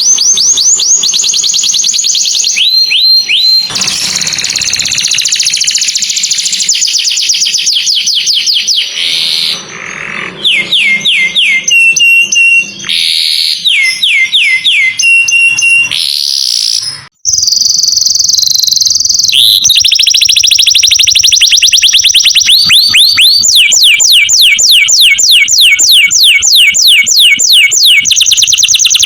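Canary singing a long, loud song of fast trills, each a rapid run of repeated high notes, some sweeping down in pitch, broken by one brief gap past the middle.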